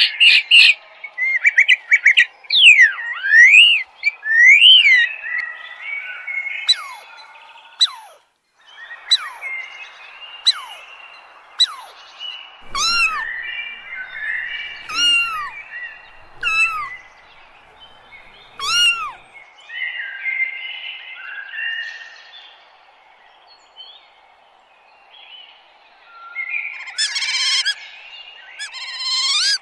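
Birds singing and calling: quick chirps and whistled trills, then a series of clear down-slurred calls about every two seconds, and busier chattering near the end.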